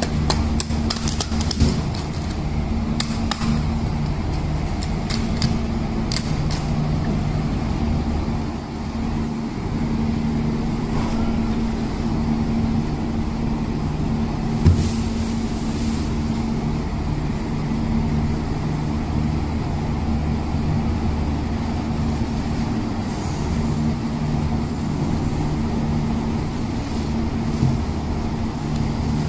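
Steady low machine hum with a few pitched lines, over scattered knocks and clicks of a tuna carcass being handled and cut on a wooden board, most of them in the first seven seconds, and one sharp knock about fifteen seconds in.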